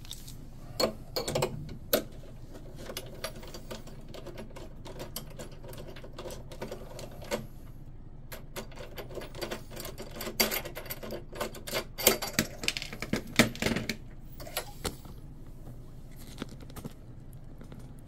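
Irregular clicks, taps and clinks of small metal hardware being handled as an RC boat's drive strut is loosened and taken off, busiest in a cluster of sharp clicks about ten to fourteen seconds in.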